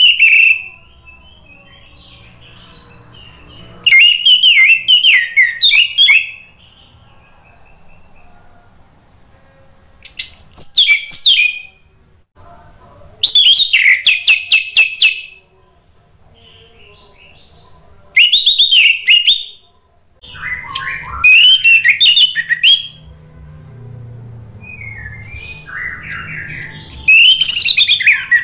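Orange-headed thrush (anis merah) singing: about six loud, rapid, warbling song phrases of one to two seconds each, with softer twittering between them.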